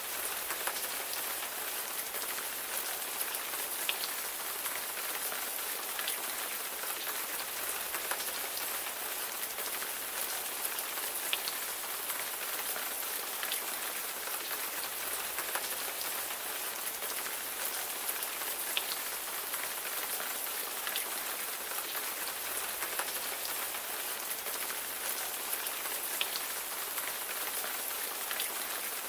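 Steady rain falling on a surface: an even hiss with scattered individual drops ticking through it.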